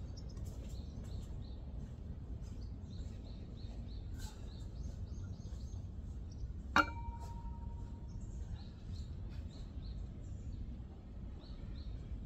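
A single sharp metallic clink with a brief ring about seven seconds in, from the outdoor bench-press barbell knocking against its metal rack, over repeated small bird chirps and a steady low rumble.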